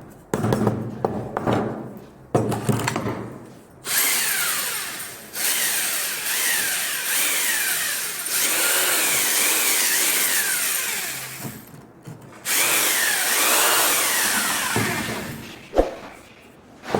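A power tool running in several long bursts, with its pitch sweeping up and down, and a sharp knock near the end.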